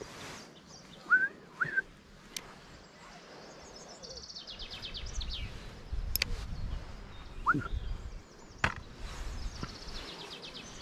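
Songbirds singing outdoors: two short rising chirps about a second in, then fast high trills twice later on. A few sharp clicks and a low rumble come in the second half.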